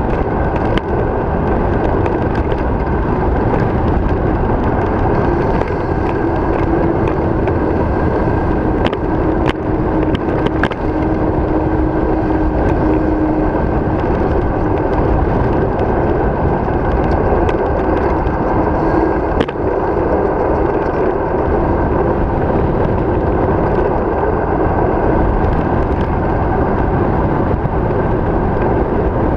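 Steady rush of wind over the camera microphone mixed with tyre noise on asphalt from a bicycle descending a paved road fast, with a few sharp clicks from bumps in the road.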